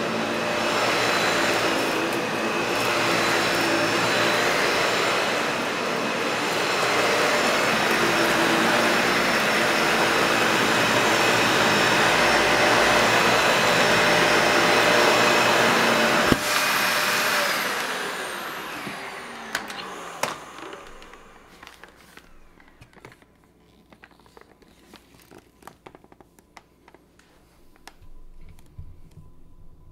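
Dyson Ball Animal upright vacuum cleaner running steadily with a whine, switched off with a click about halfway through; the motor then spins down, its pitch falling over a few seconds until it stops. Faint scattered clicks follow.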